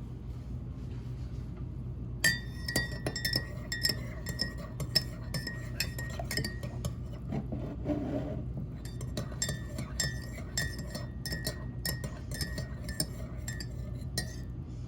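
Glassware and dishes clinking: a long run of quick light clinks, some ringing briefly, with a short pause about halfway through, over a steady low hum.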